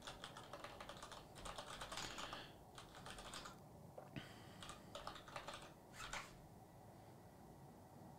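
Faint typing on a computer keyboard: quick runs of keystrokes for the first few seconds, then a few scattered key presses, stopping a couple of seconds before the end.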